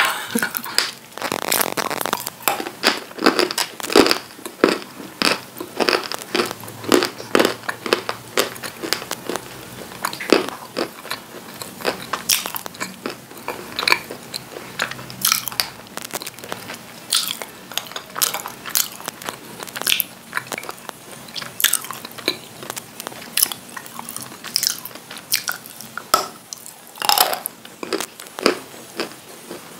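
Crunching and chewing as lumps of white edible clay (nzu, 'Nigerian cookies') are bitten and chewed, a run of sharp crunches several a second.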